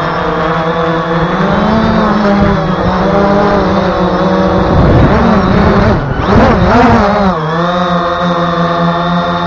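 Brushless motors and propellers of a BayangToys X16 quadcopter, heard close from the onboard camera: a steady hum with many overtones. It rises a little in pitch early on, then swings up and down sharply for a couple of seconds past the middle as the motors change speed, before settling back to a steady hum.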